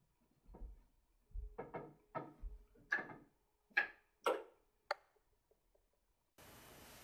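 A run of about a dozen irregular knocks and taps, some with a low thud beneath. A steady hiss starts near the end.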